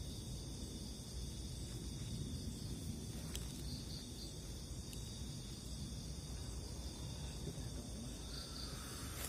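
Crickets and other night insects chirring steadily in a high continuous trill, over a low steady rumble.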